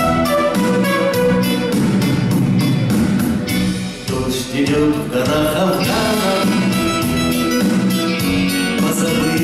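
A live band playing a song: electric and acoustic guitars, bass guitar and keyboard over a steady beat. The music dips briefly in loudness about four seconds in.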